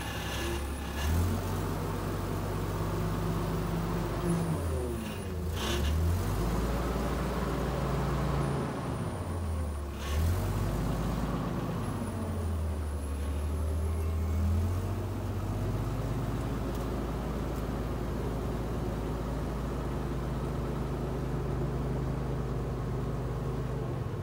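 Small forklift's engine running steadily. Its speed dips and recovers twice as the machine moves the load.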